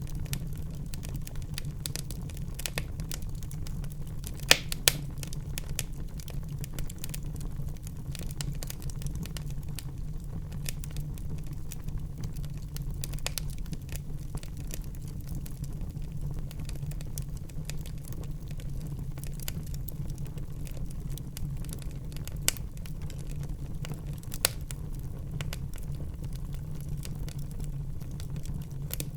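Fire burning in a fireplace: a steady low rumble of flames with constant small crackles, and a few sharper pops, two close together about four and a half seconds in and two more after twenty seconds.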